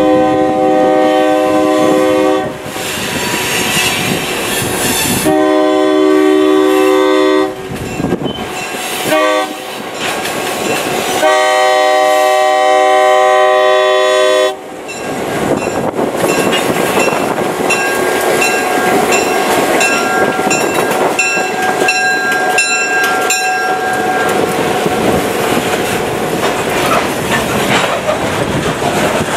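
EMD GP9 locomotive horn sounding the grade-crossing signal: two long blasts, a short one, then a long one. The locomotive then passes with engine and wheel noise, the wheels clacking over rail joints while a bell dings in a quick steady rhythm for several seconds.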